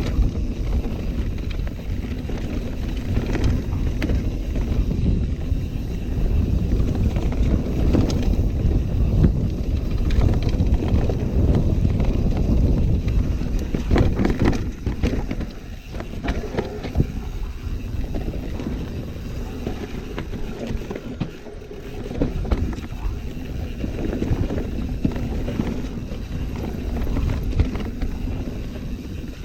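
Mountain bike descending a steep off-piste downhill trail: continuous tyre and wind rumble with scattered knocks and rattles from the bike over rough ground.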